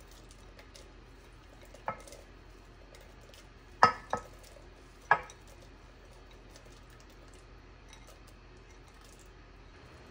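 A glass bowl clinking against the rim of a rice cooker's metal inner pot four times: once about two seconds in, twice close together near the middle (the loudest), and once more a second later. Faint small ticks of diced vegetables being pushed onto the rice run between the clinks.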